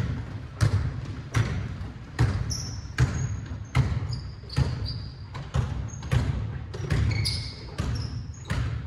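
A basketball dribbled on a hardwood gym floor, bouncing about once every three-quarters of a second and echoing in the hall, with short high-pitched sneaker squeaks in between.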